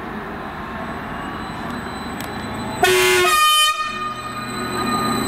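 Class 231 Stadler FLIRT train's horn sounds one toot of about a second, roughly three seconds in. It is followed by a steady low hum as the train starts to move off.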